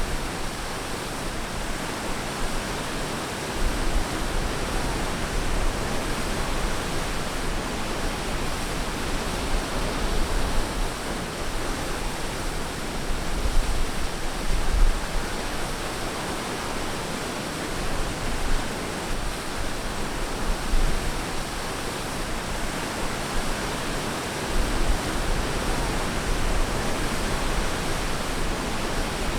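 Ocean surf washing onto a beach: a steady hiss of breaking water with a low rumble that comes and goes.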